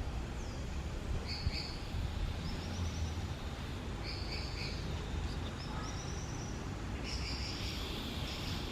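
Wild birds calling: short, bright paired notes three times, alternating with two quick runs of rising chirps, over a steady low rumble.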